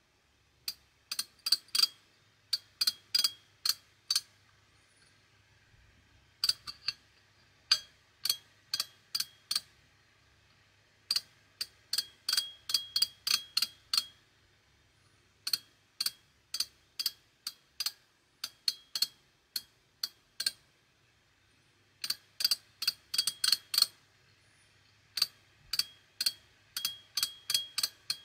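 3/8-inch drive ratchet handle freewheeling: the pawl clicks over the gear teeth in quick runs of several sharp, ringing metallic clicks, with pauses between the runs, as the handle is turned backwards to gauge its back-drag.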